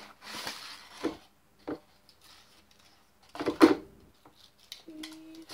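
A few short knocks and rustles of food and a plate being handled, the loudest about three and a half seconds in. A brief low hum follows near the end.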